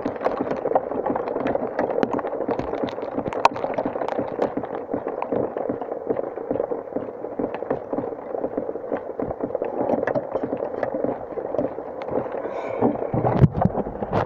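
Steady rain, dense drops ticking close to the microphone. Heavier handling knocks about 13 seconds in as the camera is picked up.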